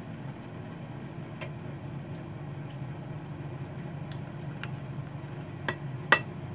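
Knife and fork clicking against a ceramic plate while slicing cured salmon: a handful of sharp clinks, the loudest near the end, over a steady low hum.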